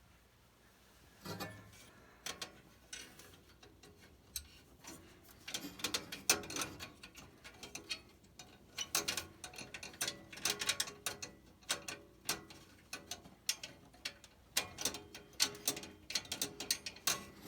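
Sharp metallic clicking in quick runs from a hand tool driving the flame sensor's sheet metal screw back into a Trane XR80 gas furnace.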